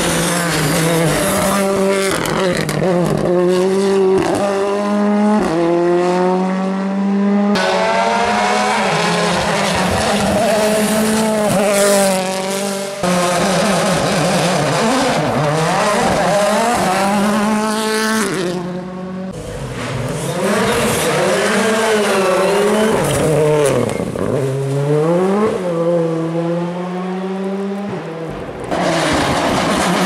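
Rally cars driven hard on a tarmac special stage. Engine pitch climbs and drops again and again through gear changes and throttle lifts as each car comes through the bends. The sound changes abruptly several times, as one car gives way to the next.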